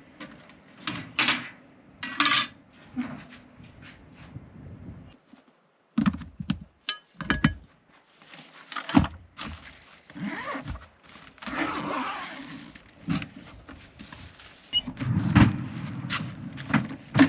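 Camp cookware and utensils clattering and knocking while the dishes are washed up: a run of irregular knocks and clinks, with a short gap of silence about five seconds in.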